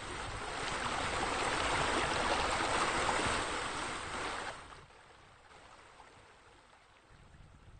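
Rushing, splashing water from a pool water feature, swelling and then dropping off suddenly about four and a half seconds in, leaving a faint hiss.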